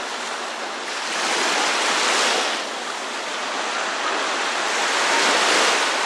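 Small Black Sea waves washing onto a sandy shore in the shallows. The surf swells twice, about a second in and again near the end.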